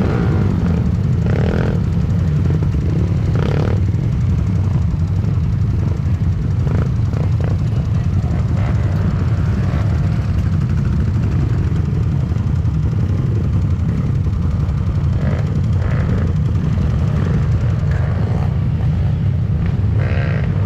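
Dirt bike engine running steadily, a low, even rumble without revving.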